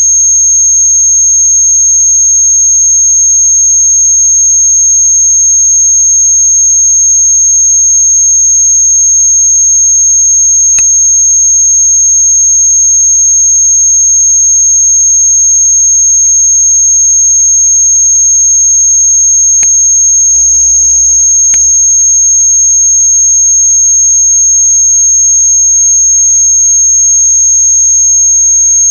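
Noise music: a loud, steady high-pitched electronic tone held over a low hum, with two sharp clicks and a short buzzing burst about twenty seconds in.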